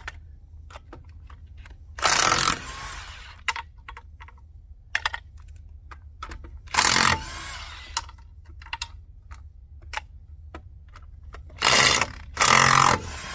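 Impact wrench with a 21 mm socket spinning lug nuts off a Ford F-350 dually's rear wheel in short bursts: four bursts of about half a second, the last two close together near the end, with clicks and clatter of the socket and nuts between.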